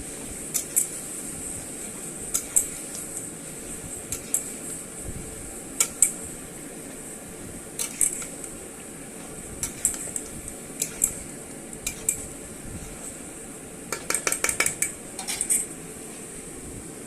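Metal spoon clinking and scraping against a cooking pot as chicken pieces are stirred into fried onions and potatoes, over a steady hiss. The clinks come irregularly, with a quick run of them about fourteen seconds in.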